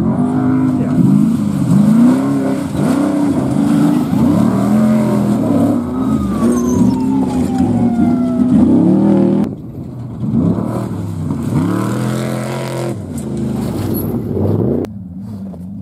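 Off-road race car engines revving hard as the cars pass close, pitch repeatedly rising and falling with throttle and gear changes, and one falling pitch as a car goes by. The sound drops off suddenly about nine and a half seconds in and again near the end.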